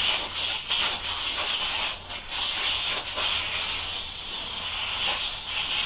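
Upholstery steamer hissing steadily as steam jets from its hand wand onto vinyl upholstery, softening the vinyl to take out wrinkles.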